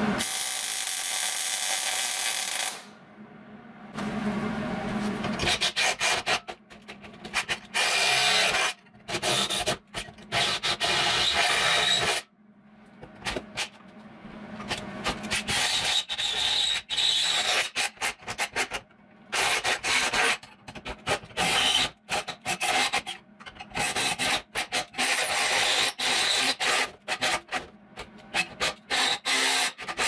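Cordless drill boring holes up through the steel of a car's rear torque box, running in many short stop-start bursts of grinding as the bit cuts and is eased off. A steady hiss fills the first three seconds before the drilling starts.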